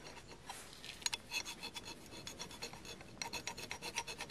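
A chisel blade scraping in short strokes across the flange of an old Ford 300 straight-six water pump, taking off leftover bits of old gasket so the new gasket will seal. The strokes are sparse at first and come in a quicker, steady run from about three seconds in.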